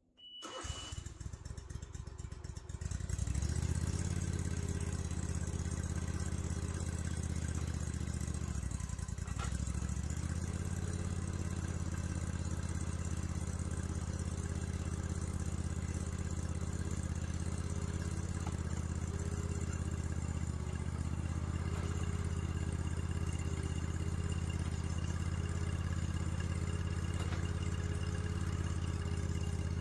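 A Boxer 320 mini skid steer's engine starting: a short high beep, about two seconds of cranking, then the engine catches and runs steadily, with a brief dip in its note about nine seconds in.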